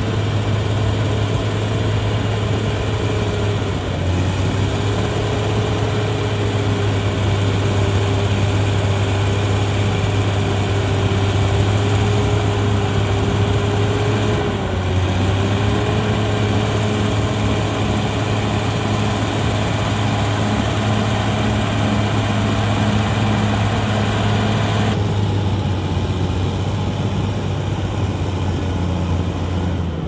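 Caterpillar D6R XL bulldozer's diesel engine running under load as the crawler pushes soil, with a steady low hum and a held whine. The whine's pitch dips briefly twice, once a few seconds in and again about halfway through.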